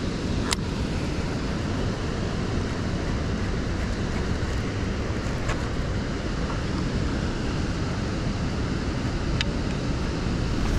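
Steady low rushing rumble, like wind buffeting the microphone, with three faint clicks scattered through it.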